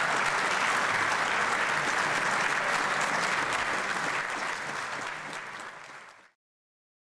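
Audience applauding steadily, tapering off and fading out near the end.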